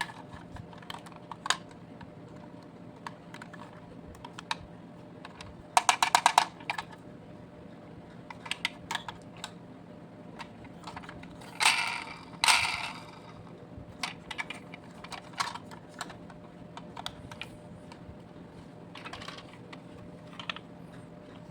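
Small hard clicks and taps of diecast toy vehicles being handled, with a quick run of rattling clicks about six seconds in and two louder rattles a little before halfway.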